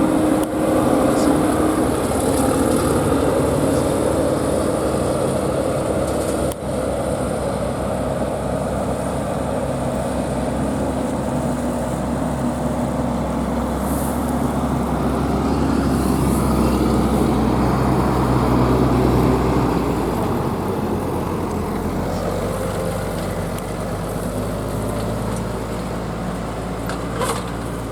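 Claas Lexion 770 combine harvester's engine running steadily as the machine moves, a constant low drone that shifts in pitch about two-thirds of the way through.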